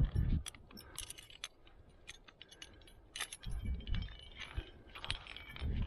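Carabiners and other metal gear on a trad climbing rack jingling and clinking as the climber moves. Bursts of low rumble come at the start, about halfway through and near the end.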